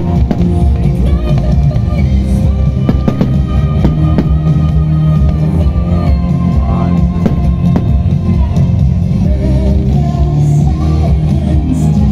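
Loud music with singing and a drum beat, with a few sharp bangs of fireworks bursting over it.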